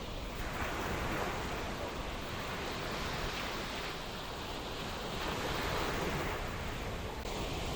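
Ocean surf: waves breaking and washing in, a steady rush that swells and eases every few seconds.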